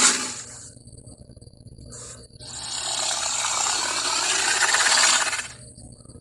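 Film creature sound effects for an Iguanodon dinosaur: a short noisy rasp at the start, then a long rasping, breathy hiss lasting about three seconds.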